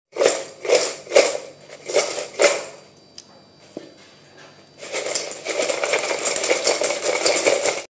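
Crisp fried potato sticks shaken and tossed in a stainless steel bowl, rattling against the metal. About five separate shakes come first, then a short lull, then continuous rattling from about five seconds in that cuts off suddenly.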